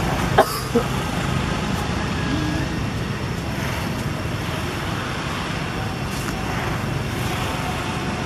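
Steady outdoor background rumble, like distant road traffic, with two brief sharp sounds under a second in.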